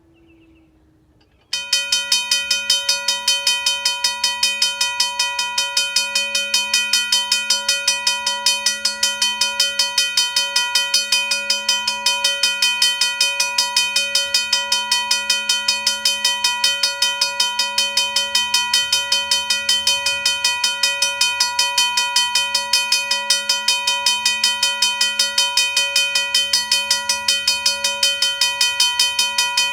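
RACO mechanical railroad crossing bell ringing, its gong struck in a rapid, even, unbroken run of strikes. It starts abruptly about a second and a half in and rings bright and steady without pause.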